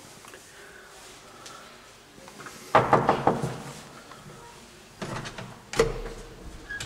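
Knocking on a wooden door, a quick burst of several knocks about three seconds in, followed near the end by the clicks and clunk of the lock and latch as the door is opened.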